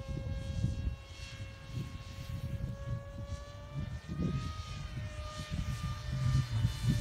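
Radio-controlled F-22 Raptor model plane flying overhead, its motor giving a steady whine that rises slightly in pitch and falls back about four seconds in, with wind gusting on the microphone.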